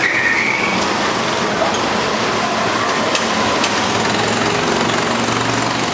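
Several small rental go-kart engines running at once, a steady dense rattling drone as karts pull away and circulate.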